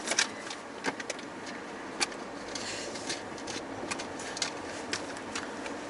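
Steady road and engine noise inside a moving car's cabin, with a scattering of light, sharp clicks and taps.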